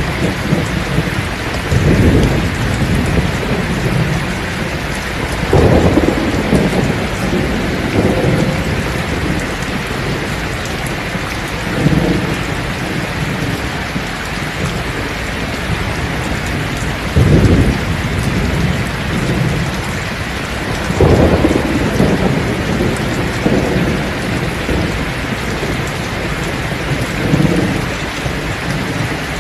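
Heavy rain pouring steadily onto a thatched roof and the ground, with deep rolls of thunder rumbling up about every few seconds.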